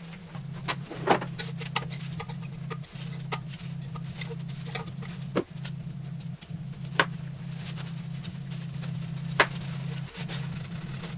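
Scattered sharp clicks and knocks of hand tools being handled during a motorcycle hub rebuild, over a steady low hum.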